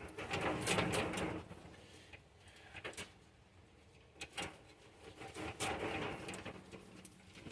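Hands working through a tangled bundle of loose wiring harness, wires rustling and scraping against each other, with a few light clicks. The handling is busiest for the first second and a half, sparse in the middle, and picks up again later.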